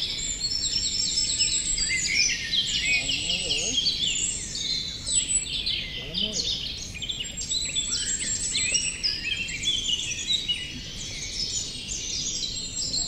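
Several songbirds singing at once, a dense overlapping mix of quick chirps, trills and short whistles that runs on without a break.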